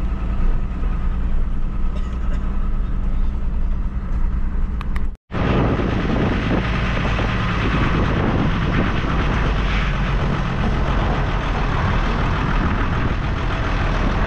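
Truck engine running steadily while the truck is driven. The sound drops out for a moment about five seconds in; after that a rougher, rushing noise rides over the engine hum.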